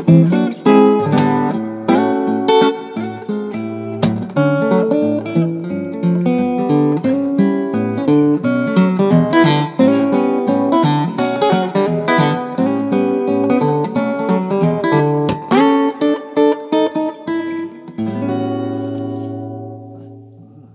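Acoustic guitar music played through an Acus acoustic-instrument amplifier as it is tested after repair: quick runs of plucked notes, ending about three seconds from the end on a held chord that rings out and fades.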